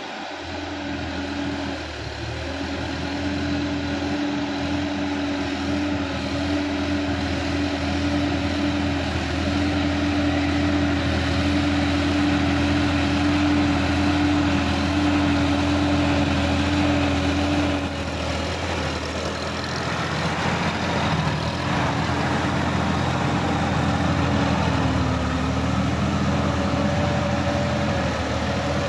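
Sonalika DI-50 RX tractor's diesel engine running steadily as it drives through a flooded paddy field. It grows louder over the first few seconds and changes note about two-thirds of the way through.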